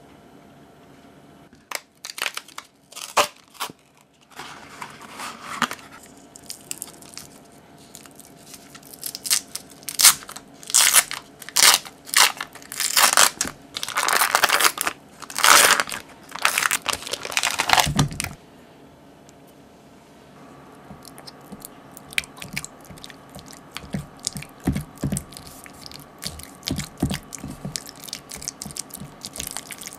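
Cream cheese packaging being opened by hand: the box and foil wrapper crinkle and tear in loud, irregular bursts for the first half or more. In the later part, softer clicks and soft thuds follow as the cream cheese is worked with a whisk in a glass bowl.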